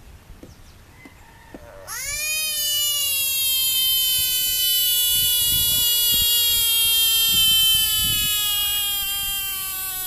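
Bullfrog's distress scream: one long, loud, siren-like cry that starts suddenly about two seconds in and slowly falls in pitch. It is the frog's protest at being handled and disturbed.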